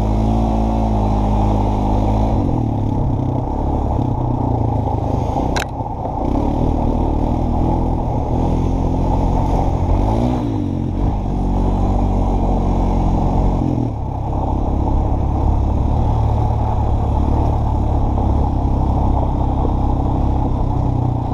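Honda ATV engine running as the quad is ridden, its pitch rising and falling a few times with the throttle. A single sharp click about five and a half seconds in.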